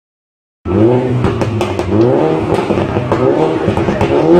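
A car engine revving up and down again and again, with scattered clicks, starting suddenly about half a second in.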